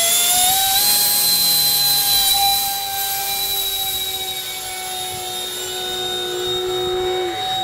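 Electric ducted fan of a 50 mm EDF model Mirage 2000 jet, run on a 4S LiPo, whining at full power in a high, steady tone after the hand launch. It grows fainter about two and a half seconds in as the model climbs away.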